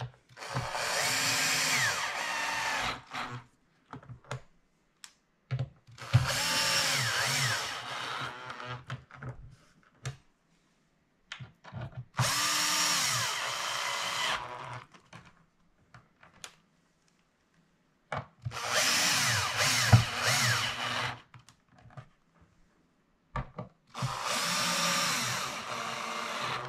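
Cordless drill-driver running a screw home through the woofer's frame into the particle-board baffle of a Cerwin Vega speaker, one screw at a time. There are five runs of about two to three seconds each, with pauses between them as the driver moves from screw to screw.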